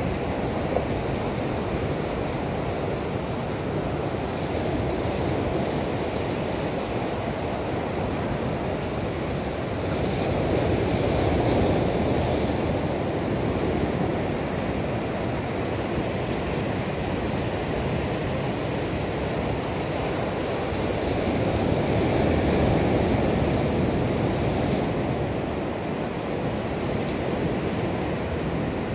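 Ocean surf breaking and washing against shoreline rocks, a steady rushing that swells louder twice, about a third of the way in and again about three quarters of the way through.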